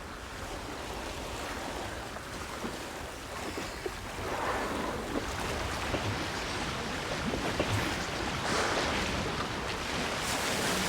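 Ocean water sloshing and splashing around swimmers, a steady rushing noise with scattered small splashes.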